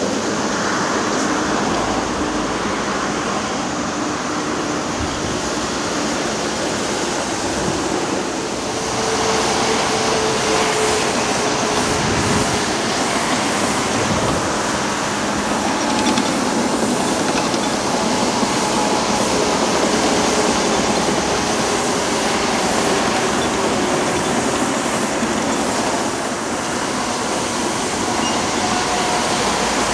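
Steady noise of busy motorway traffic, cars and lorries rolling past, with diesel construction machinery working in the distance.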